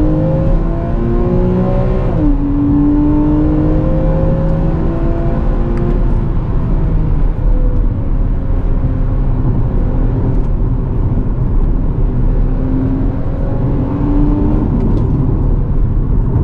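Porsche 981 Cayman S 3.4-litre flat-six accelerating, heard from inside the cabin. It rises in pitch and drops sharply at an upshift about two seconds in, climbs again through the next gear, and drops again at another upshift near the end, over steady road noise.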